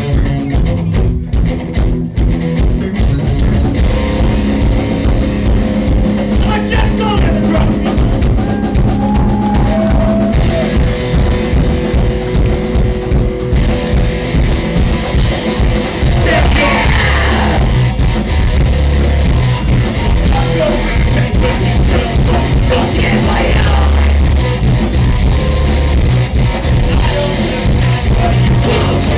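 Live rock band playing loud, with electric guitars and a drum kit together.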